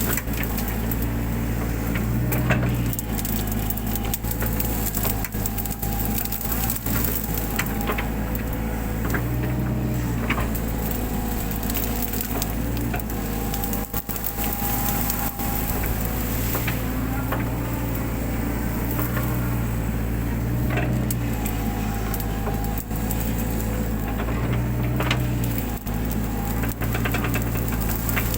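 Mini excavator's diesel engine running steadily, its note swelling every few seconds as the hydraulics take load, while brush and undergrowth crack and snap as it is crushed.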